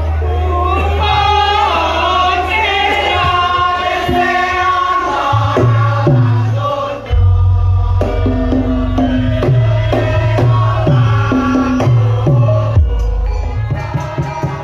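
Traditional Javanese lengger music: singing over a percussion ensemble. About halfway in, a deep repeating bass note and sharp drum strokes come to the fore.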